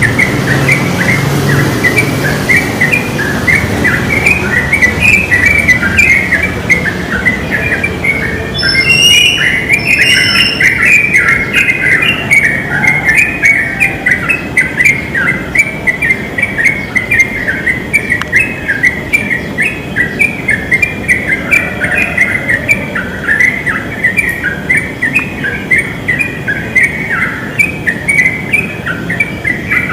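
Sooty-headed bulbuls (trucukan) singing without pause, a dense stream of short bubbling notes. A few higher, thinner notes join about nine seconds in.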